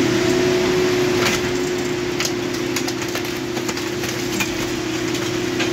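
Scrapyard material handler's engine and hydraulics running with a steady drone, while the wrecked car in its grapple gives several sharp metallic cracks and crunches.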